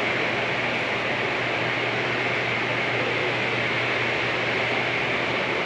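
Steady background hiss over a low, even hum: building ventilation noise in the room.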